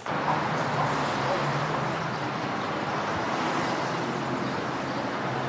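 Steady road-vehicle and traffic noise with a low engine hum, starting abruptly.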